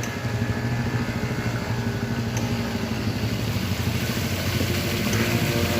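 Motorcycle engine running at a steady level, with fast, even firing pulses.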